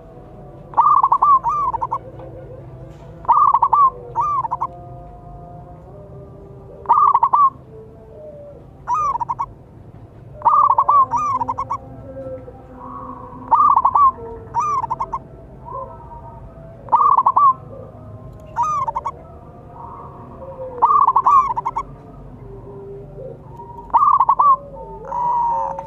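Zebra dove (perkutut) cooing: about a dozen loud bursts of quick, rolling coo notes, one roughly every two seconds, with fainter, lower bird calls underneath.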